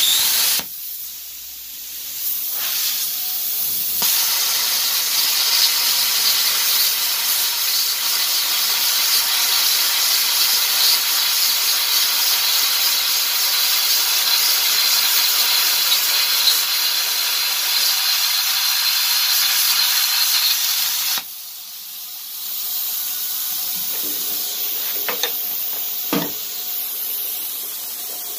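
Velt Cut 60 plasma cutter's hand torch cutting steel at about 35 amps: the arc strikes suddenly and gives a loud, steady hiss. About 21 seconds in the arc cuts off abruptly, and the torch's air keeps hissing more quietly, with a couple of faint knocks near the end.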